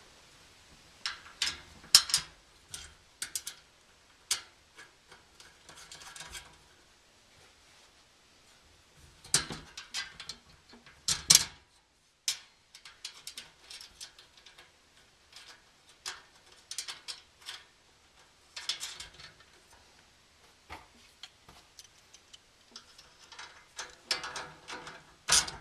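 Irregular metallic clicks, taps and clinks as bolts and hardware are fitted to fasten a steel cargo barrier's wing to its lower mount, with a few sharper knocks about 2, 9 and 11 seconds in.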